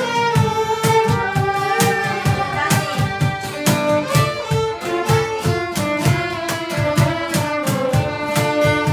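Violins playing a melody together over a strummed acoustic guitar keeping a steady beat, about three strums a second.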